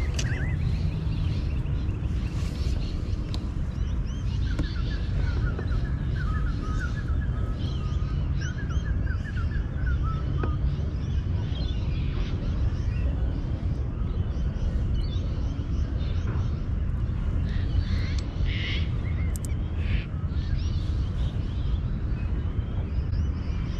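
Steady low wind rumble on the microphone, with birds calling in the background: a run of quick repeated notes a few seconds in and a few short calls later.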